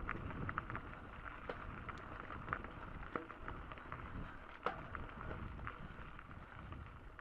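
Bicycle rolling over a rough dirt trail: irregular rattling clicks from the bike, over a low rumble of wind on the microphone.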